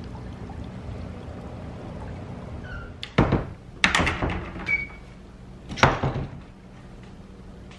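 Hinged closet doors being pushed shut: three thunks about three, four and six seconds in, after a low steady background noise.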